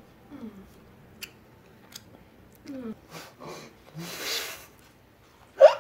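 Close mouth sounds of eating: soft chewing clicks and a few short hummed "mm" sounds, with a long breath out about four seconds in. A loud vocal exclamation breaks in right at the end.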